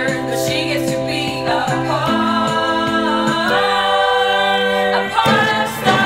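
Music with several voices singing long held notes in chords that shift a few times.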